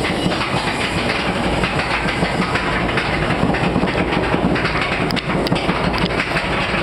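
Chain lift of a water ride hauling a boat up its steel lift hill: a steady, rapid clatter of knocks, with a few sharper clicks about five seconds in.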